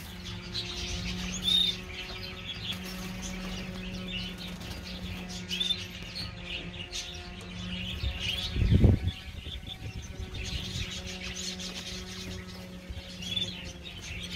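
Small aviary birds chirping and twittering, with short rising chirps now and then, over a steady low hum. A single low thump comes about nine seconds in.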